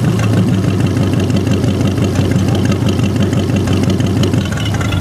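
Ford flathead V8 in a John Deere lawn tractor idling steadily through short open exhaust stacks.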